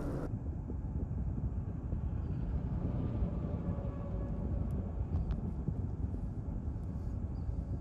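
Steady low rumble of a car driving on a snow-covered highway: road and wind noise heard from inside the cabin.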